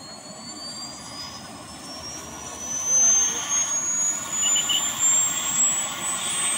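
Helicopter's turbine engine spooling up on the ground, its high whine rising steadily in pitch as the main rotor turns. The rush of engine and rotor noise grows louder, jumping up about three seconds in.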